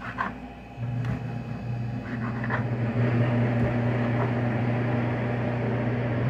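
A steady machine hum with an airy rush starts about a second in and keeps going. A few light knife taps on a metal tray come in the first seconds, as chicken is cut.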